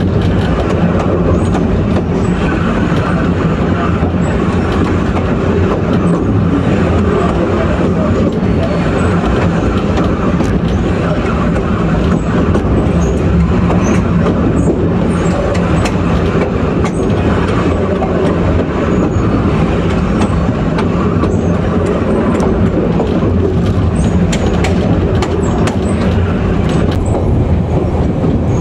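Diesel shunting locomotive DSA 273 running steadily along the line with a low engine drone. Wheels click over the rail joints, mostly in the second half.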